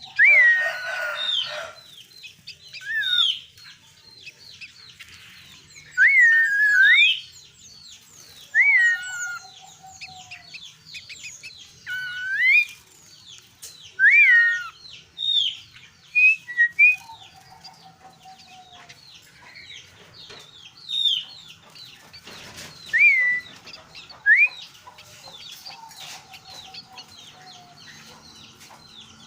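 Sooty-headed bulbul (kutilang) singing short, loud, liquid whistled phrases, each a quick rising-and-falling glide, repeated every couple of seconds. Fainter chirps of other small birds run behind it, with a low rattling trill now and then.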